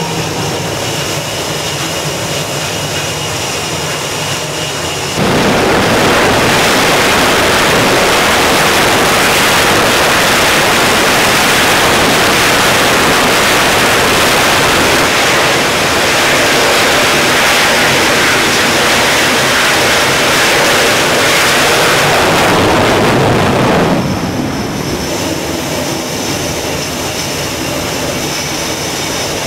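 F/A-18 twin jet engines whining at idle, then about five seconds in jumping suddenly to a loud, steady full-power noise that holds for about nineteen seconds, as for a catapult launch, before dropping back to the whine of engines idling near the end.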